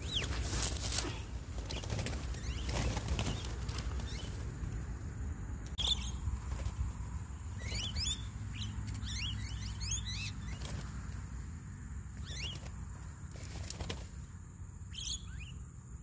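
Bird wings flapping near the start, then short chirping calls scattered through the rest, from a small flock of Javan mynas (jalak kebo) coming down to feed on the ground.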